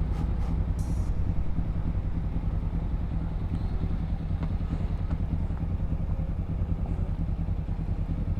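Motorcycle engine idling steadily with an even low pulse.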